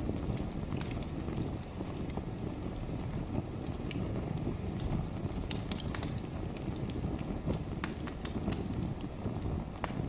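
Wood fire burning in a fireplace: a steady low rumble of the flames, with many sharp, irregular crackles and pops from the burning logs.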